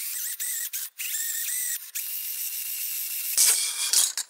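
Cordless drill spinning a spring-loaded stone cylinder hone inside an oiled, rusty cylinder liner: a steady motor whine over a scraping hiss, dropping out briefly about one and two seconds in, with louder scraping surges near the end. The honing is meant to clean off rust and leave cross-hatched scratches for the piston rings.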